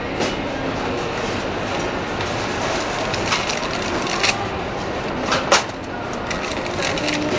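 Computer assembly-line noise: a steady machinery din with scattered sharp clicks and clacks, several of them between about three and six seconds in.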